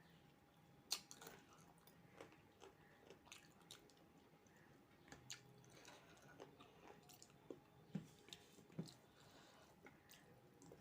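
Faint close-up chewing and mouth sounds of a person eating fried rice and chicken curry: irregular wet smacks and clicks, the sharpest about a second in and a few more around eight to nine seconds.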